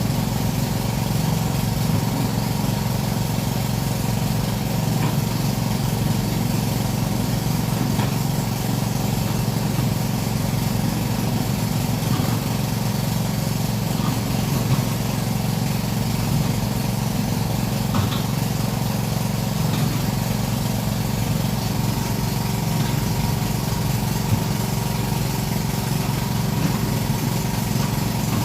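Sumitomo SH210-5 excavator's diesel engine running steadily at an even, unchanging speed, with a few faint clicks.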